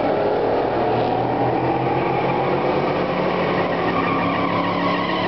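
Small-block Chevy V8 of a drag-race Chevrolet S-10 pickup running at a loud, choppy idle as the truck creeps forward.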